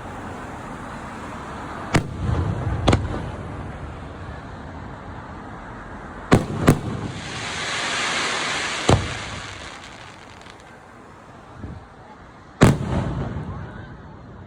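Aerial firework shells bursting: about six sharp bangs, each followed by a rumbling echo. In the middle, a hissing crackle swells up and fades away.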